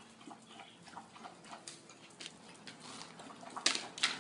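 Scattered light ticks and scuffs of feet and dogs' paws moving on loose gravel, with two louder sharp clicks near the end.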